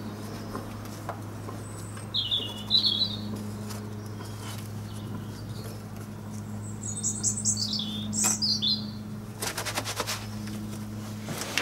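Small bird chirping twice, a short burst of high notes about two seconds in and a longer falling run of notes around seven to nine seconds in, over a steady low hum. A cluster of light clicks comes near the end.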